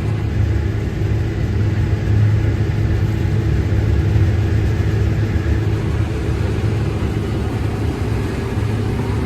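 Combine harvester running steadily while harvesting corn, heard from inside the cab: a steady low hum with several steady tones layered above it.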